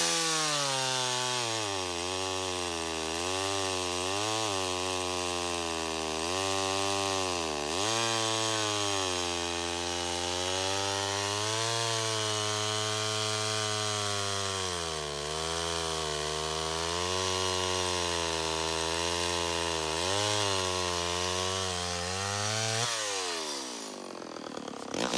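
Vintage Homelite XL-12 two-stroke chainsaw cutting through a white oak log, the engine pitch repeatedly dipping under load and recovering. About two seconds before the end the throttle is released and the engine winds down toward idle.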